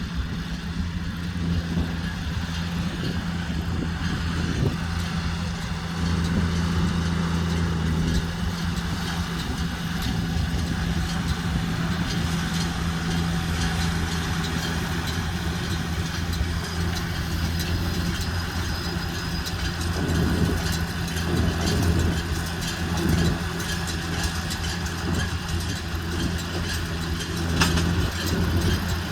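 Tractor engine running steadily under load while driving a combined baler-wrapper, with a steady low hum and machinery noise over it.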